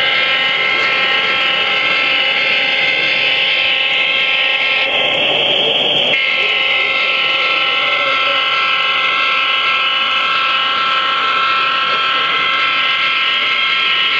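Sound decoder in an HO-scale Union Pacific diesel locomotive model blowing a loud, steady multi-note air horn through its small speaker, held for the whole stretch.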